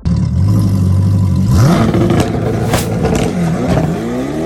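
A car engine revving and accelerating, its pitch rising twice, with one sharp bang about two-thirds of the way through.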